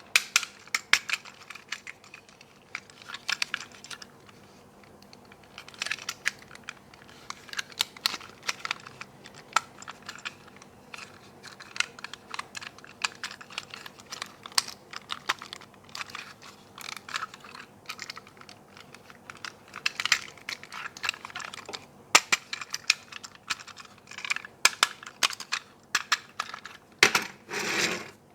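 Small plastic toy cars and packaging being handled: irregular clicks, taps and light rattles, with a few louder rustles near the end.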